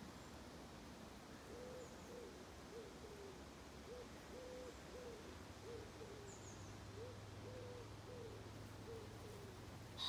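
Faint, low hooting bird calls: a dozen or so short notes of the same pitch repeated steadily, about one and a half a second. Two thin high chirps from a small bird and a low steady hum from about halfway sit underneath.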